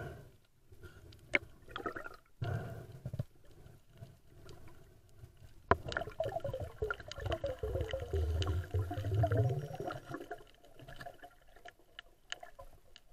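Underwater sound picked up by a diving camera: water moving around the housing with scattered clicks and knocks. About six seconds in comes a few seconds of gurgling bubbles over a low rumble, the loudest part.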